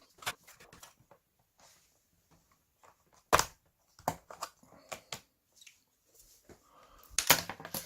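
Plastic and metal clicks and knocks of a laptop's bottom cover being worked loose and handled during disassembly. There is one sharp knock about a third of the way in and a quick run of clicks near the end.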